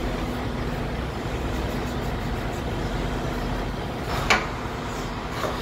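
Semi truck's diesel engine idling steadily, heard from inside the cab, with a short sharp knock about four seconds in.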